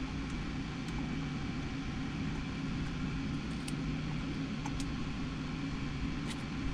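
Steady low mechanical hum, with a few faint small clicks of screws and parts being handled at the top of a steering column.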